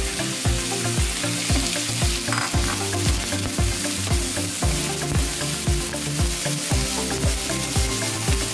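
Chopped onions sizzling in hot oil in a nonstick pan while a wooden spatula stirs them. Background music with a steady beat plays along.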